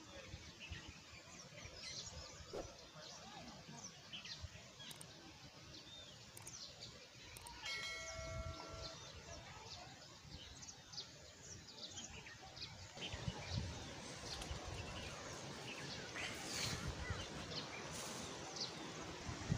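Faint open-country ambience: small birds chirping on and off, over a low wind rumble. About eight seconds in, a single steady tone with overtones holds for about a second, and the wind noise grows louder and fuller from about two-thirds of the way through.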